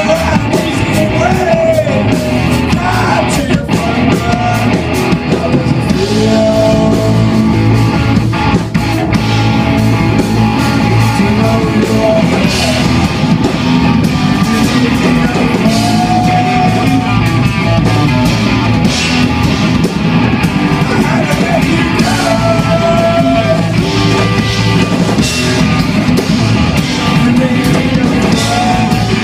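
Rock band playing loud live: distorted electric guitars through amplifiers and a drum kit, with a singer singing into a microphone.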